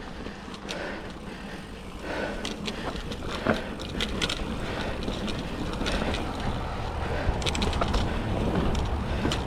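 2007 Cannondale Rush mountain bike riding over a dirt trail: a steady rumble of tyres and wind, with scattered sharp clicks and rattles from the chain and frame over bumps and roots. The rumble grows louder toward the end.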